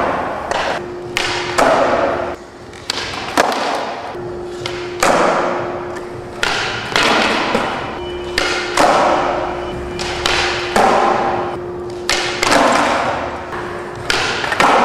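Skateboards on a smooth concrete floor: the wheels roll with a steady hum, broken by sharp pops and clacks as the tail is snapped and the board lands, about eight or nine times.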